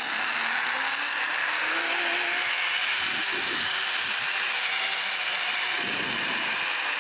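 Zipline trolley pulleys running fast and steadily along the steel cable during a ride.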